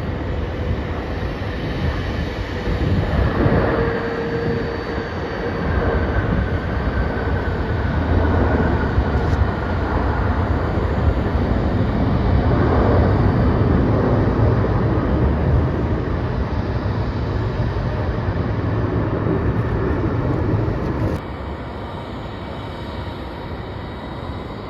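Jet airliner engine noise: a loud, steady rumble with a faint whine slowly falling in pitch in the first several seconds. It drops suddenly to a quieter, steadier noise about 21 seconds in.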